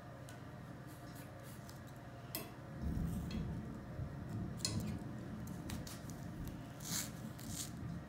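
Metal scissors snipping strips of 1-inch Zonas adhesive tape: a few short, sharp snips over the rustle of the tape being handled, which grows louder about three seconds in.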